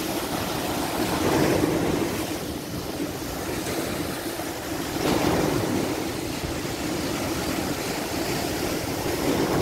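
Sea waves breaking and washing over rock boulders at the shore, with wind on the microphone. The surf swells three times: about a second and a half in, about five seconds in, and near the end.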